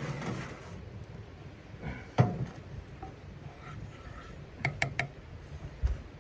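Handling noises: a brief rustle, a sharp knock about two seconds in, three quick clicks close together around five seconds, and a low thump near the end.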